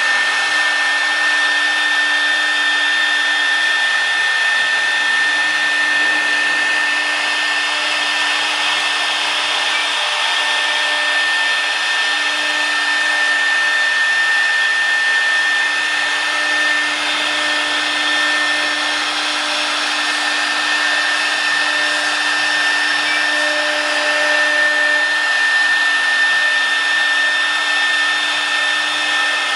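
CNC router spindle running at high speed with a steady high whine while its bit engraves lettering into a wooden board.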